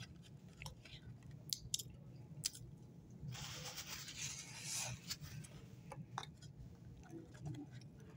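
Faint chewing of a Subway footlong cookie, with a few sharp clicks about one and a half to two and a half seconds in as fingers handle the cookie and its tray.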